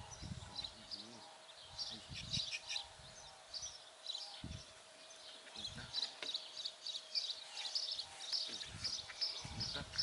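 Small birds chirping over and over, short high notes repeating throughout. Under them run a faint steady hum and a few low rumbles that come and go.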